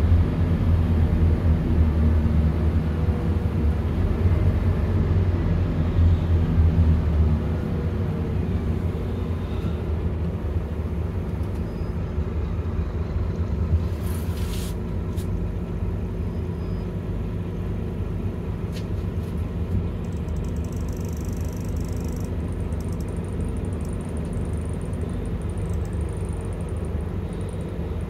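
Scania Omnilink city bus engine running as the bus drives, a steady low rumble that drops in loudness about a quarter of the way through. A single short click is heard about halfway.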